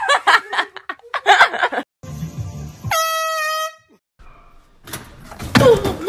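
An air horn blasts once for about a second, halfway through, a loud steady tone that sags slightly in pitch. Around it come loud startled cries: a burst of shrieks and shouts at the start and another loud yelp near the end.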